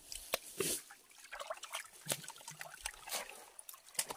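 Shallow pond water splashing and trickling, with scattered sharp little splashes and knocks, as fish are caught in it by hand.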